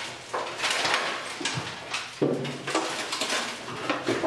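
A bare steel car body on wooden rotisserie wings being rolled over on a concrete floor: an irregular series of clunks, scrapes and metallic rattles, with a sharper knock about two seconds in.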